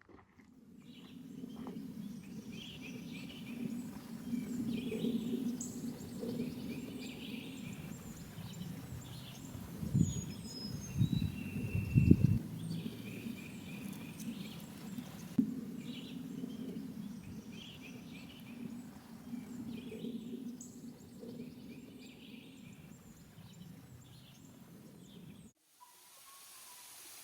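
Outdoor ambience with birds calling in short, repeated chirps and whistles over a steady low rumble. A few loud thumps come about ten to twelve seconds in, and the sound cuts off abruptly near the end.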